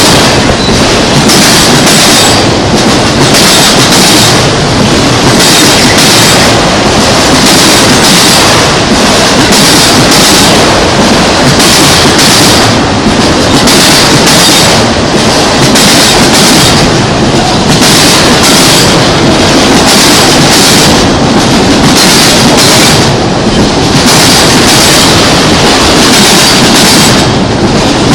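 Loud freight train cars rolling past at close range, their wheels clattering over the rail joints. The clatter swells and fades in a steady repeat about every two seconds.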